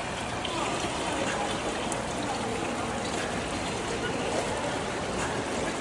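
Pool water churning and lapping steadily around a swimmer treading water, his hands sculling at the surface.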